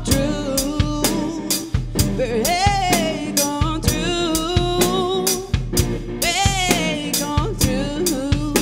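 Blues band music: a drum kit keeps a steady beat, about two to three hits a second, under a melody line that wavers with vibrato.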